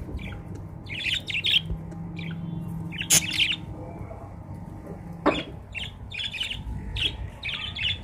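Budgerigars chattering: a string of short, high chirps and squawks, one sharper call about three seconds in.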